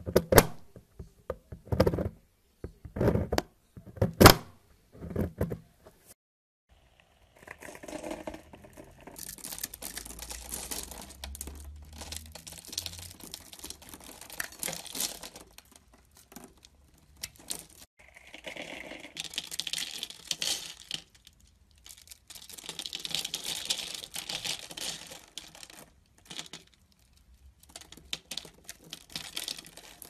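A knife cutting bars of soap. It starts with about six separate crisp slices, then turns into long runs of crunchy scraping as the blade scores the dry soap into tiny cubes that crumble away.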